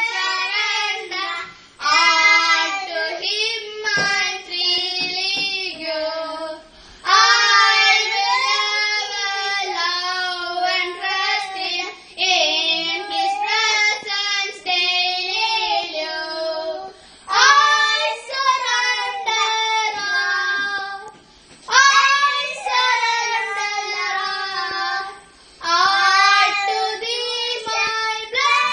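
Two young boys singing a song together, unaccompanied, in phrases of a few seconds with short pauses for breath between them.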